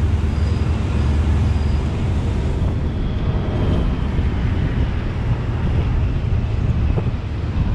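Passenger train running along the line, heard from on board: a steady low rumble with a noisy wash over it.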